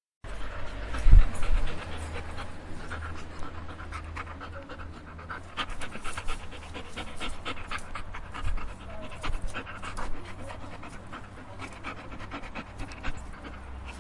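A dog panting in quick, rapid breaths, over a low rumble, with a single loud thump about a second in.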